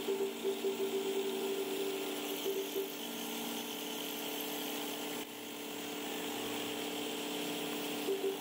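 A small power tool running steadily, with a continuous whirring hiss.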